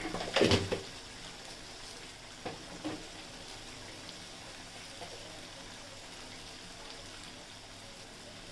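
Curry mix of ground spices frying in oil in a pot, a steady low sizzle. A few short knocks come near the start, and two smaller ones about two and a half seconds in.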